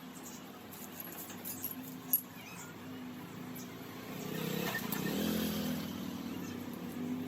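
Light clicks of work with a sharp knock about two seconds in, then from about four seconds a motor vehicle's engine running, swelling and holding.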